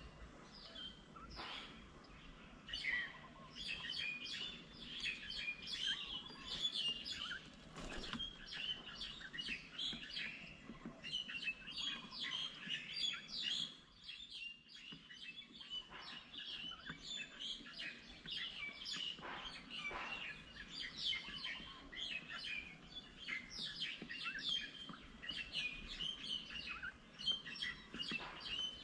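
Many small birds chirping busily, with rapid overlapping short chirps, a brief lull midway and a few soft knocks.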